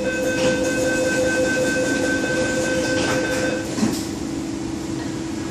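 MTR South Island Line S-Train door-closing warning: a rapid beeping tone for about three and a half seconds, then the train doors and platform screen doors shut with a knock, over the steady hum of the train.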